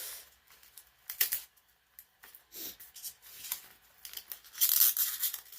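Packing being handled while a cord is tugged free from a box: intermittent rustling and scraping of cardboard and styrofoam, with a short sharp scrape about a second in and a longer, louder scraping stretch near the end.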